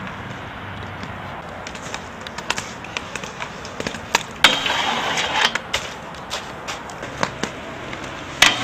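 Aggressive inline skates rolling on concrete with scattered clicks, then a hard scraping grind of about a second that starts about four and a half seconds in, and another grind starting near the end.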